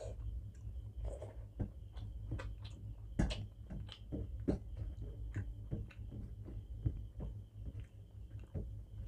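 Close-up eating sounds of a meal eaten by hand: irregular soft clicks and squelches of chewing and of fingers mixing rice with egg curry on a steel plate, over a low steady hum.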